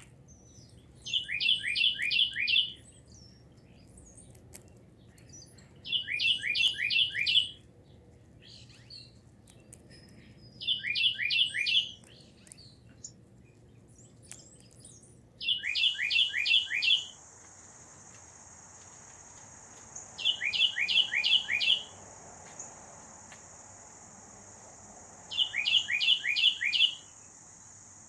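A songbird sings a short phrase of four or five quick, clear, downslurred whistled notes, repeated six times at an even interval of about five seconds. About halfway through, a steady high-pitched insect drone starts and continues.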